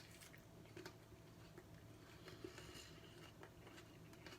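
Near silence: room tone with a low steady hum and a few faint small clicks.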